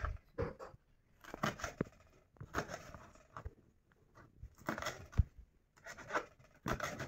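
Kitchen knife slicing crisp green chillies on a plastic cutting board, in short clusters of cuts about once a second.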